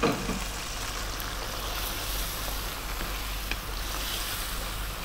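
Lamb stew sizzling and bubbling in a frying pan with the stock just added, stirred with a wooden spoon. A short knock right at the start and a couple of faint clicks later.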